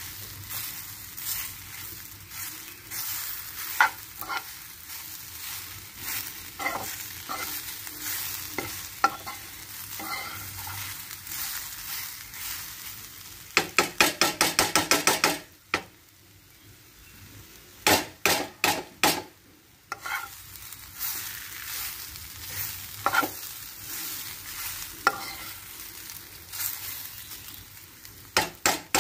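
Masala-coated brinjal slices sizzling in oil in a metal pan while a metal spoon stirs and turns them, scraping and clicking against the pan. Midway there is a fast run of about a dozen spoon strokes, then a few sharp knocks.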